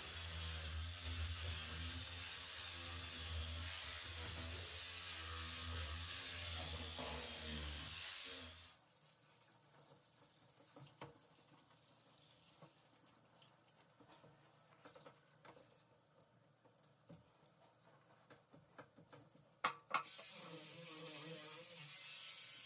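Electric spin scrub brush running with a steady low hum as it scrubs wet shower tile and grout, cutting off after about nine seconds. Then faint handling clicks, and near the end a steady hiss of water spraying from a hand-held shower head.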